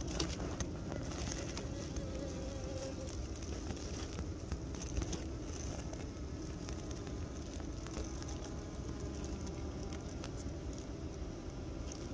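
Honeybees buzzing at close range, a steady low hum with many small scattered clicks and ticks.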